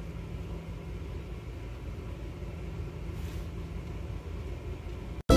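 Street traffic: cars driving past on a city road, a steady low rumble of engines and tyres.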